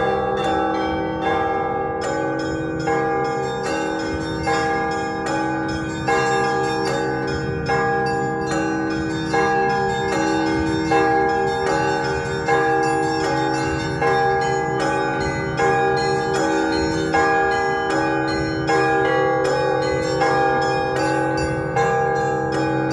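Russian Orthodox church bells ringing a festive peal (prazdnichny zvon): many bells of different pitches struck in a continuous rhythmic pattern. One small bell is struck in a fast even run over slower, ringing strokes of the other bells.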